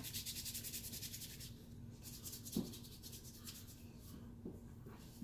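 Fingers rubbing quickly back and forth over skin, scrubbing at a flaky fake-skin coating on a forearm: faint, fast scratchy strokes about ten a second, in two spells of about a second and a half each.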